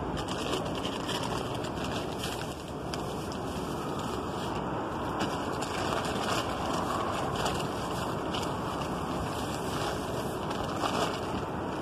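Wind blowing across the phone's microphone, a steady rushing noise, with scattered short rustles and clicks from the phone being handled.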